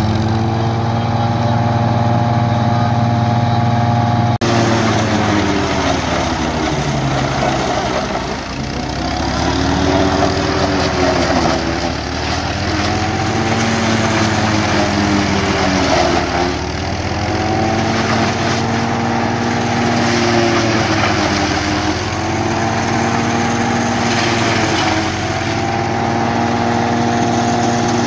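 Fiat 480 tractor's diesel engine driving a PTO-powered silage cutter as maize stalks are fed in. The engine's pitch sags and recovers again and again, about every four seconds, as each armful loads the cutter, over the chopper's steady din.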